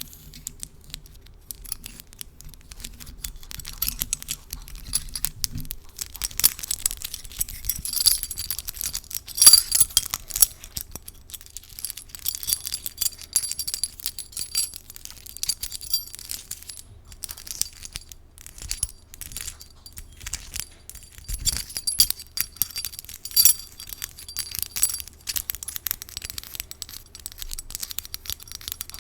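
A metal key handled, tapped and scratched with long false nails close to the microphone: dense small clicks with light metallic jingling that swells and fades a few times.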